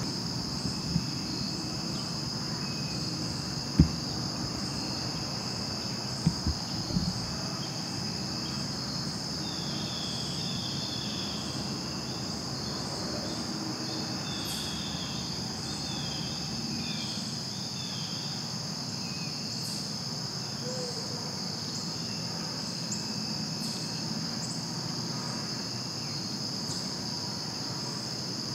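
Steady, high-pitched chorus of crickets and other insects, with a few short dull knocks around four and seven seconds in.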